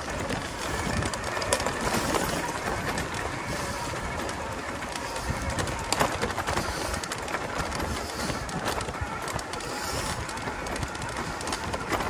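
Yamaha YPJ-TC electric-assist mountain bike ridden over a rough forest trail: steady tyre and frame rattle with sharp knocks as it goes over roots and bumps, the loudest about a second and a half and six seconds in.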